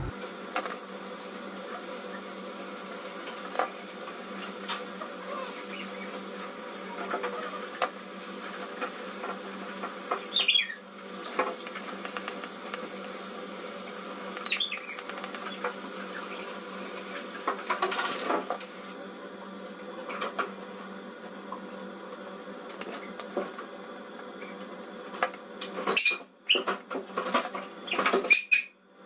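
Grooming scissors snipping and a comb working through a rabbit's fur, heard as irregular small clicks over a steady background hum, with a burst of sharper, louder clicks near the end.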